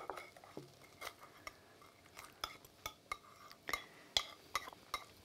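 Knives and forks clicking and scraping against a ceramic plate while cutting into a crisp brick-pastry parcel, with a dozen or so scattered light clinks.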